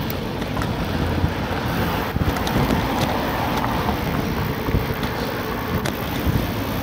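Wind rushing over the microphone of a camera on a moving bicycle, a steady rumbling noise, with a few sharp clicks and knocks.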